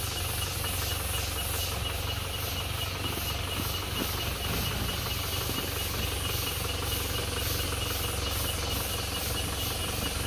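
A 4x4 off-road vehicle's engine running steadily as it crawls forward, with insects chirring in a fast steady pulse over it.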